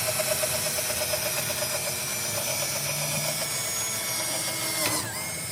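Electric drill running steadily as it bores a small hole for a rivet nut, then spinning down with a falling whine about five seconds in.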